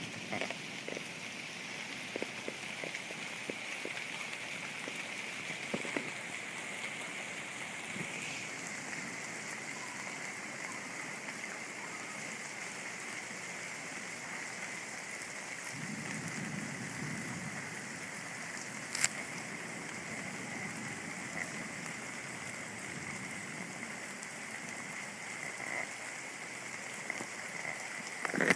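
Steady rain during a thunderstorm, with scattered drop ticks. A brief low rumble comes just past the middle, and a sharp click a little later is the loudest sound.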